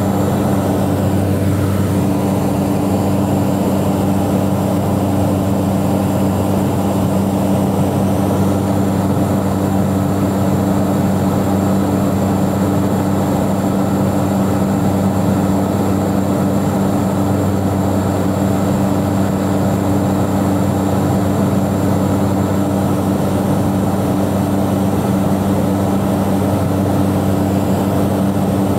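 Airplane engines in cruise heard inside the passenger cabin: a steady, unchanging drone, a low hum of even tones over a constant hiss.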